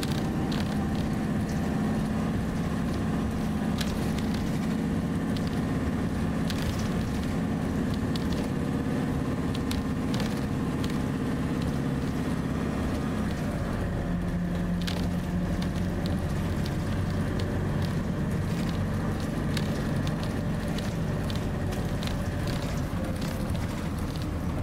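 Cabin noise inside a moving bus: a steady engine drone and road rumble, with scattered small rattles and clicks. The engine note changes about halfway through.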